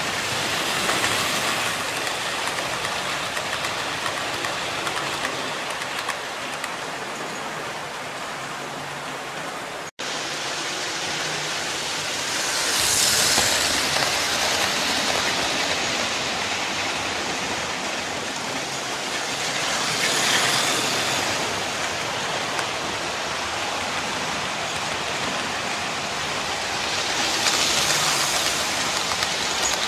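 00 gauge model trains running on the layout: a steady rolling hiss and rumble of wheels on rail and motors, swelling each time a train runs close past, about a second in, around 13 s, around 20 s, and again near the end as a tender-drive Hornby A4 locomotive goes by. A brief drop-out cuts the sound about ten seconds in.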